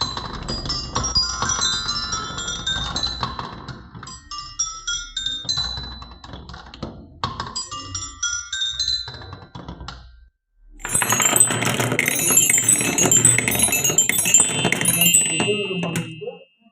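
Marbles rolling and clacking down a wooden marble run, a dense stream of short bright clinks and ringing pings. It stops briefly about ten seconds in, then starts again louder.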